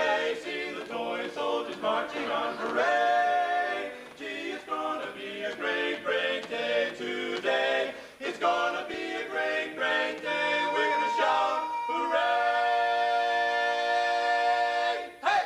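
Barbershop quartet of four men singing a cappella, first in quick, short, rhythmic notes. About three-quarters of the way through they hold one long final chord, which cuts off just at the end.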